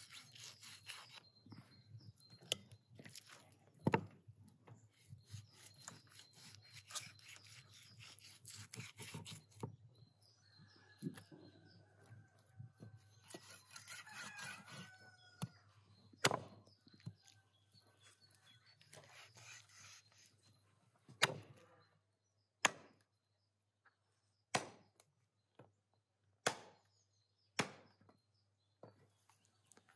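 Raw lamb being cut from the bone with a knife, with scraping and small knocks, then a large meat cleaver chopping it on a wooden stump block: a series of sharp single chops a second or two apart in the second half.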